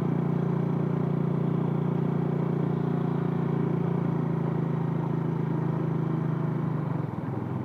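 Motor scooter engine running steadily under way on a dirt road, a low even drone that drops a little in level and pitch about seven seconds in.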